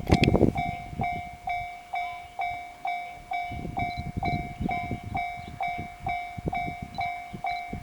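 Railway level-crossing warning bell ringing steadily, a bright two-tone ding about twice a second. Beneath it is the low rumble of an E531-series electric train on the track.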